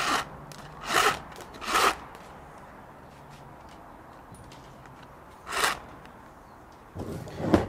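Echo Black Diamond nylon trimmer line being pulled off its spool through the box's dispenser, in short swishing pulls: three in the first two seconds, one about five and a half seconds in, and a longer one near the end.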